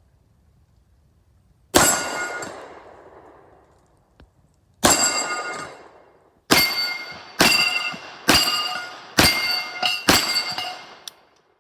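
A string of about eight 9mm gunshots, spaced a few seconds apart at first and then coming about a second apart, each trailing off in a long metallic ring.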